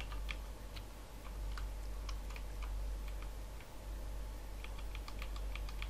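Computer mouse and keyboard clicks: scattered sharp clicks that come in a quicker run near the end, over a steady low electrical hum.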